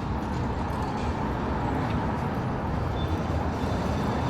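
Steady city street noise, mostly road traffic running past.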